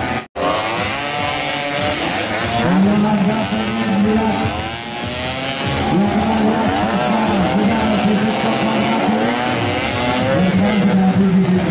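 Several two-stroke Vespa racing scooters revving hard as they race past, their engine notes overlapping and rising and falling in pitch. One engine holds a steady high note in stretches and drops in pitch as it passes near the end. There is a brief dropout just after the start.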